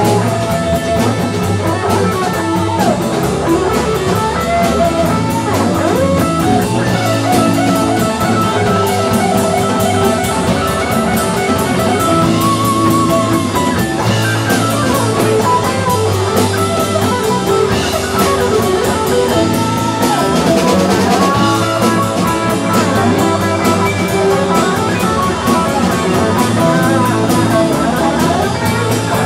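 Live rock-blues band playing: an electric guitar takes a lead line with bent, wavering notes over congas, drums and bass.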